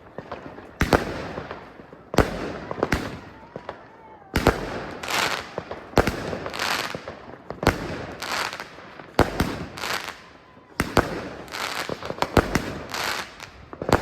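Weco 'Rowdy' XXL fan-cake firework battery firing: a sharp launch shot roughly every second, each followed by a noisy, hissing tail that fades over most of a second.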